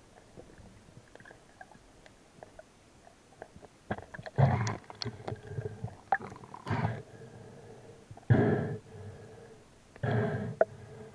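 Water sounds from a camera held underwater in a river: faint clicks at first, then muffled sloshing and splashing bursts about every two seconds from a swimmer moving near the surface.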